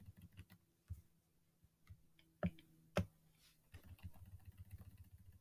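Faint clicking at a computer: two sharp single clicks about two and a half and three seconds in, then a run of quick, faint ticks near the end while the document scrolls to the next page. A low, steady hum sits underneath.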